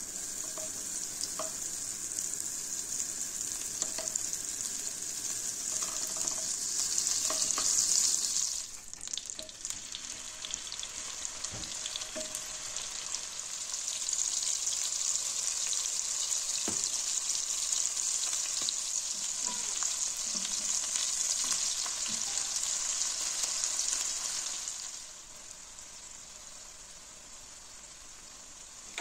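Butter sizzling in a frying pan, then seasoned chicken breast pieces frying in the hot butter with a steady high sizzle and a few light clicks of tongs as they are turned. The sizzle dips a third of the way in and quietens for the last few seconds.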